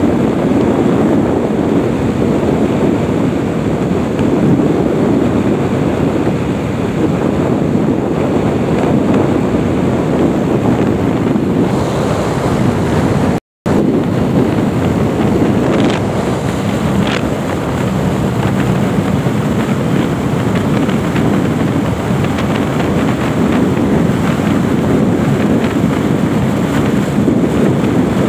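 Heavy wind buffeting the microphone of a motorcycle riding at highway speed, a steady loud rush with the bike's engine and road noise underneath. The sound cuts out for a moment about halfway through.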